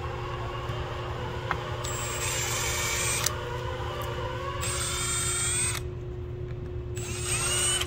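Power driver spinning out the T40 Torx fasteners from the face of a CP4 high-pressure fuel pump, in three short runs, its motor whine climbing in pitch at the start of each.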